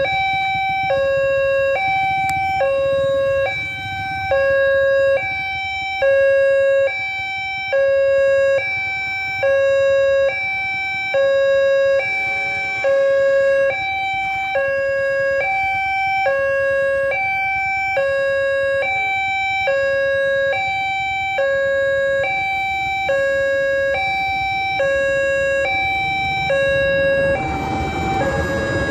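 Railway level crossing warning alarm sounding a two-tone electronic chime, a higher and a lower note alternating about once a second. A rushing, rumbling noise swells underneath near the end.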